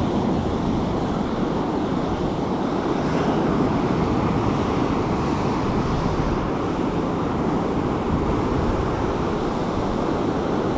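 Steady rush of sea surf breaking on the beach, mixed with wind buffeting the microphone.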